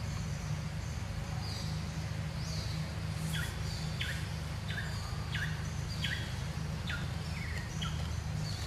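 A bird repeating short, quickly falling whistled notes, about seven in a row a little under a second apart, over a steady low rumble of outdoor background noise.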